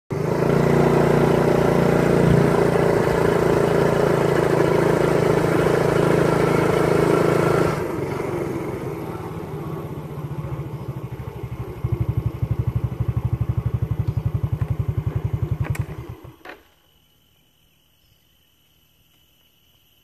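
A motorcycle engine runs steadily, drops to a lower level about eight seconds in, then idles with a fast, even beat before being switched off about sixteen seconds in. After it stops, insects chirp faintly with a thin, steady high tone.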